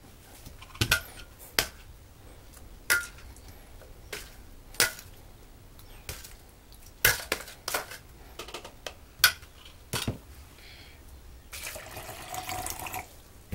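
Metal spoon knocking and clinking against a steel bowl and a plastic beaker in a string of separate sharp clicks as food is scooped across. Near the end, water is poured from a steel cup into the plastic beaker for about a second and a half.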